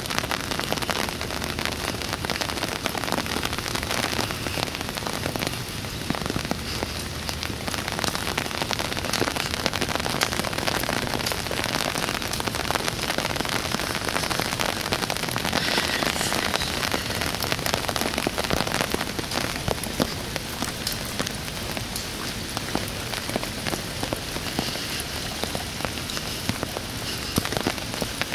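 Heavy rain falling steadily: a dense, even hiss with many close drops ticking.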